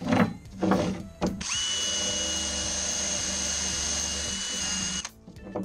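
Erbauer cordless drill spinning a wire wheel brush against a flux-core weld to clean off spatter, running steadily with a high motor whine for about three and a half seconds, then stopping. It is preceded by a few knocks as the metal part is handled on the bench.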